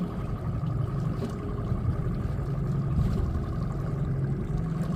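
Fishing boat's motor running steadily: a low drone with a faint steady whine above it, unchanged throughout.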